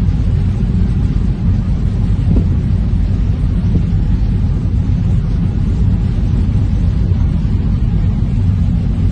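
Steady low rumble of wind buffeting the microphone on the deck of a ship under way.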